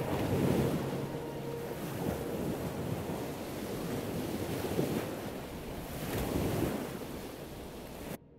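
Ocean surf: waves washing in and drawing back, swelling and ebbing a few times, then cutting off suddenly near the end.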